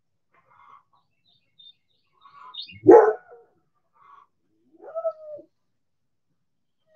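Backyard hens clucking softly, broken by one loud call about three seconds in and a shorter pitched call near five seconds.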